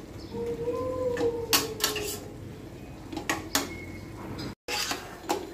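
A spatula stirring thick vegetable curry in a stainless steel pan, knocking and scraping against the pan's side several times.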